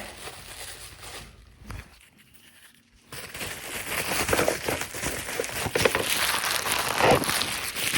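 Mailing package being pulled and torn open by hand, with crinkling and tearing of the wrapping and sticky tape. It starts quiet, then becomes a continuous rustle about three seconds in.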